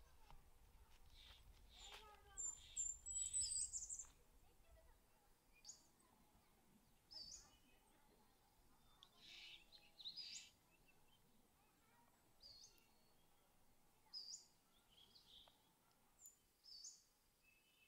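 Faint birdsong: small birds chirping in short, high notes every second or two, with a brief busier flurry of calls a few seconds in.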